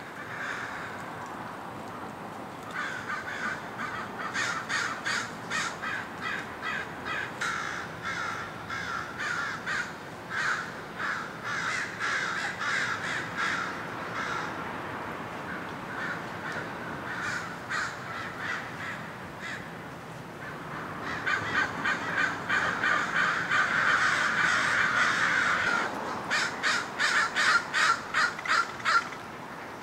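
Several American crows cawing in repeated series of harsh calls, often overlapping. The calling thins out around the middle, thickens into a dense chorus about two-thirds of the way through, then breaks into separate rapid caws near the end.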